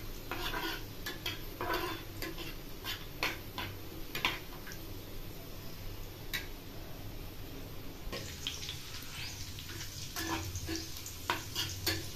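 A metal spoon scraping and clicking against a frying pan as chopped onions are stirred in hot oil, over a soft sizzle. The stirring stops for a few seconds in the middle and starts again; the onions are being browned to light golden.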